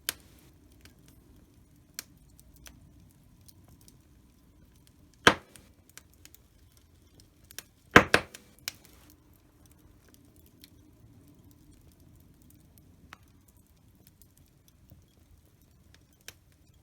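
Fire in a fireplace crackling: scattered sharp snaps and pops over a faint low steady background, with a loud pop about five seconds in and a louder quick double pop about eight seconds in.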